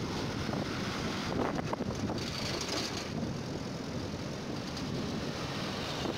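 Steady road and wind noise from a vehicle driving along a highway in truck traffic.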